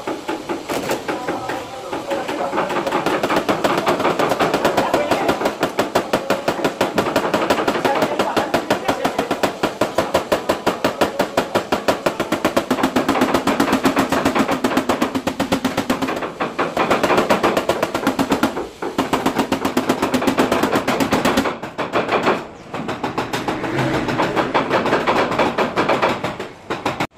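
Rapid, even tapping of a paintless-dent-repair hammer on a knockdown punch held against a Citroën C3's front fender, about five light metallic taps a second, with a few short pauses in the second half. The taps knock down high spots to level the badly repaired dent.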